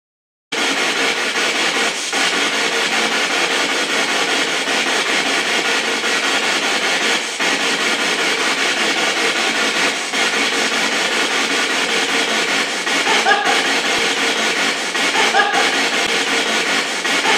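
A loud, steady hiss of static-like noise that cuts in abruptly after a brief moment of dead silence, with faint voice-like fragments a few seconds before the end.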